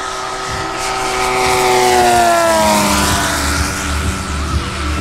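Desert Aircraft DA-200 twin-cylinder two-stroke petrol engine and propeller of a large-scale model aerobatic plane on a close low pass. The engine note grows louder to a peak about two seconds in, then drops in pitch as the plane goes by.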